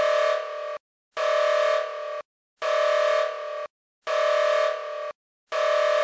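Emergency alert attention tone, a steady pitched tone with strong overtones, sounding in pulses about a second long with short silences between. Each pulse drops in loudness about halfway through.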